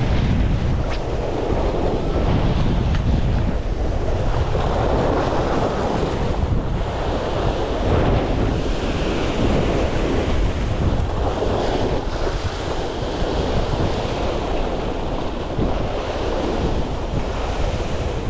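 Sea waves breaking and washing over the rocks in repeated surges, with wind rumbling on the microphone.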